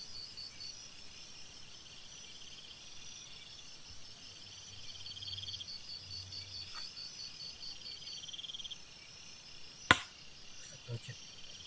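Night insects, crickets among them, chirping steadily: an even high pulsed chirp with trills repeating every couple of seconds. About ten seconds in comes a single sharp knock, the loudest sound, followed by a few faint clicks.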